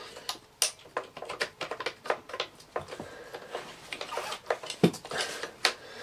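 Irregular clicks and knocks of parts being handled and fitted together while a Hoover Senior upright vacuum cleaner's handle is reassembled onto its base.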